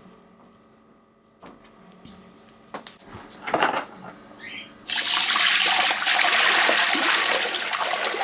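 Water rushing hard into a kitchen sink, starting suddenly about five seconds in and running steadily; a few light knocks and clicks of kitchenware before it.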